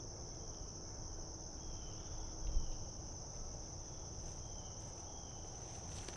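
Steady high-pitched drone of an insect chorus in the woods, with fainter short chirps now and then. A single low thump comes about two and a half seconds in.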